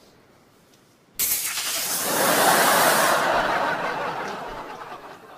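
Sitcom studio audience laughing. The laughter comes in suddenly about a second in, swells, and then slowly dies away.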